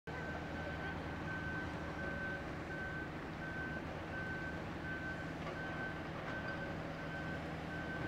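Backup alarm on heavy construction equipment beeping steadily, about three beeps every two seconds, over the steady low rumble of diesel excavators and other machines running.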